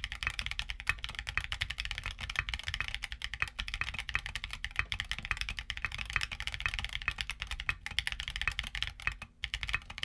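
Fast, continuous typing on a mechanical keyboard fitted with Gateron Beer tactile switches, a dense patter of high-pitched, crisp clacks from their polycarbonate top and bottom housings. A brief pause in the keystrokes comes about nine seconds in.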